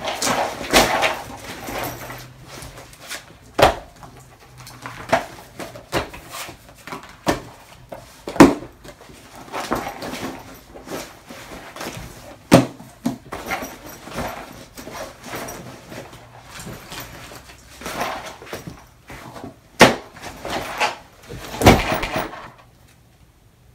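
School supplies being stuffed back into a fabric backpack: rustling of the bag and paper with irregular knocks and thuds as notebooks and pencil cases go in. The loudest thuds come about a third of the way in and near the end, and the handling stops shortly before the end.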